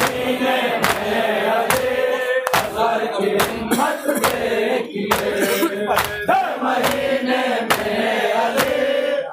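Men chanting a noha in unison, with the crowd beating their chests (matam) in time: sharp slaps a little under a second apart over the singing.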